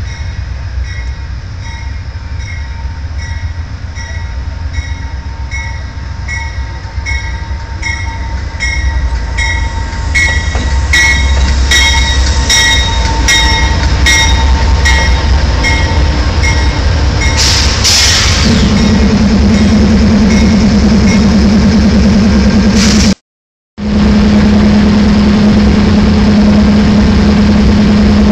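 Amtrak GE P42 Genesis diesel locomotives bringing a passenger train into a station, with a ringing strike repeating about one and a half times a second, typical of a locomotive bell, growing louder as the train draws near. Near the bell's end a short hiss of air comes, then the loud steady hum of the stopped locomotive running alongside. Twice the sound cuts out briefly.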